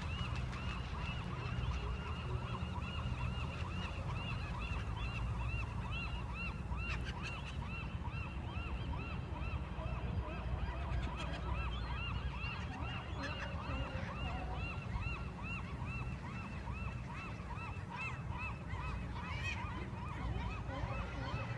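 A large flock of marbled godwits calling continuously: many overlapping short calls, each rising and falling in pitch, in a dense unbroken chorus.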